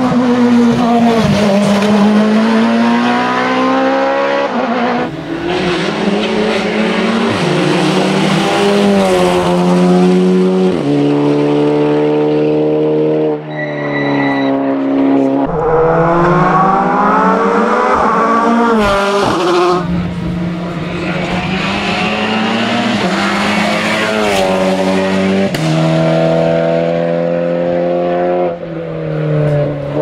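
Hill-climb racing car engines at full throttle, the pitch climbing and dropping back at each gear change several times as cars accelerate up the course.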